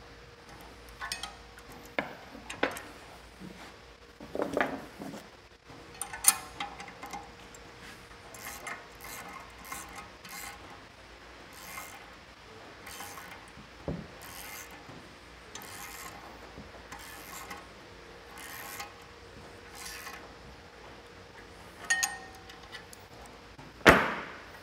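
A ratchet wrench clicking in repeated short strokes as it tightens the socket-head bolts of a brake caliper bracket, with a spanner holding the lock nut on the other side. One loud clank near the end.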